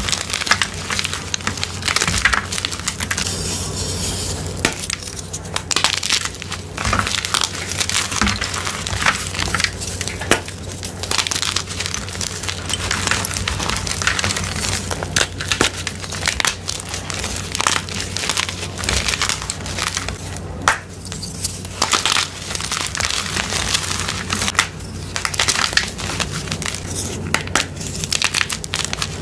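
Blocks of gym chalk crushed and crumbled between bare hands: continuous dry crunching and crackling as chunks break and grind into powder.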